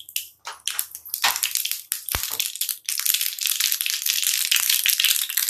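Mustard seeds in hot oil in a nonstick frying pan, crackling at first in scattered pops, then from about three seconds in a dense, continuous crackle as the seeds start to splutter: the oil is hot enough for tempering.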